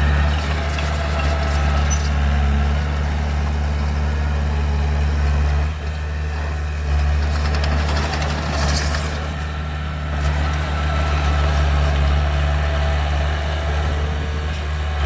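Heavy diesel engine running steadily at a low, even drone, with a short hiss about nine seconds in.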